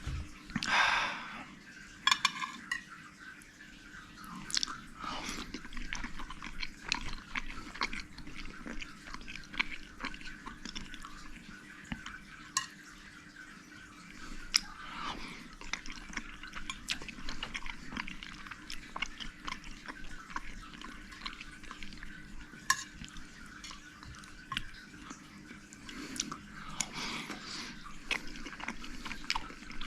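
Someone chewing food, with many small, irregular mouth clicks.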